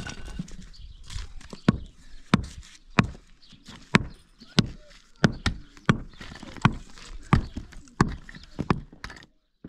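A series of sharp knocks at a fairly even pace, about one every two-thirds of a second, stopping just before the end.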